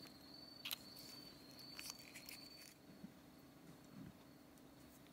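Near silence with a few small clicks and taps from hands handling a glue tube and a clear plastic lure lip. A steady, thin high-pitched tone stops about halfway through.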